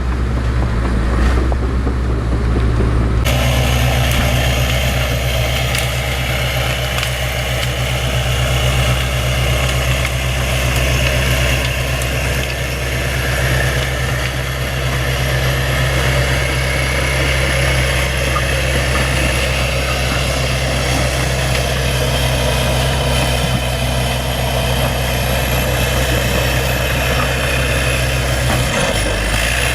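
Bulldozer's diesel engine running at a steady pitch, with the sound changing abruptly about three seconds in.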